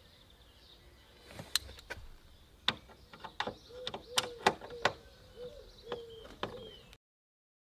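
Phillips screwdriver backing out the light's retaining screws: a run of irregular sharp clicks from the driver tip and screws, with short squeaks of the screws turning partway through.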